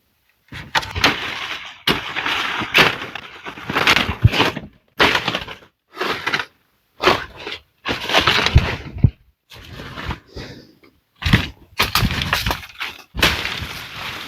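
Repeated cracking and breaking of wood in short bursts, each cut off abruptly by a moment of silence.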